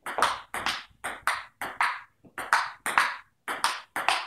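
Table tennis rally: a ping-pong ball bouncing on the table and struck back by paddles in quick alternation, a sharp click about four times a second.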